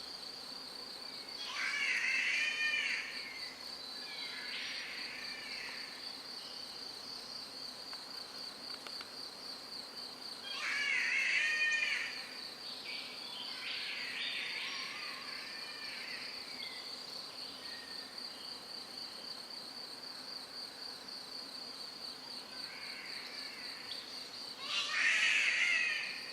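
Three loud, wavering, strange calls from an unseen rainforest animal, each lasting about a second and a half and spaced about ten seconds apart, with fainter answering calls after the first two; the recordist takes the callers for birds, at least three of them. A steady, high, pulsing insect drone runs underneath.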